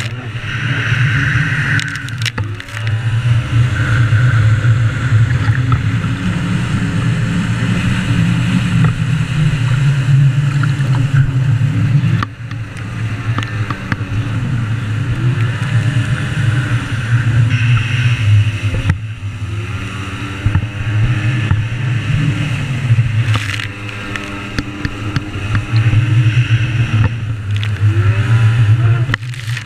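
Krash 50 Cal stand-up jet ski's two-stroke engine running under way, its pitch climbing and falling again and again as the throttle is worked, with wind and water spray hissing over it. The engine note drops briefly about twelve seconds in and twice more later, as the throttle is backed off.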